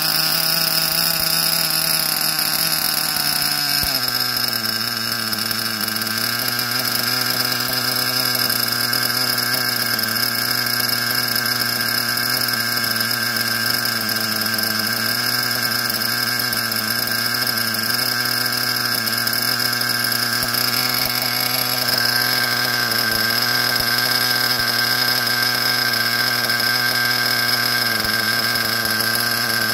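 SH .21 nitro model engine with a tuned pipe running steadily on rich fuel mixture. Its pitch drops about four seconds in, then holds with brief small dips.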